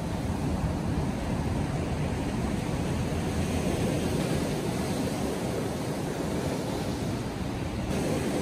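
Ocean surf breaking against a rocky shoreline: a steady rushing wash of waves with no distinct strikes.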